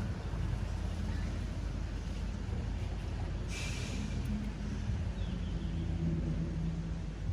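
Steady low hum of a vehicle engine running, with a short hiss about three and a half seconds in.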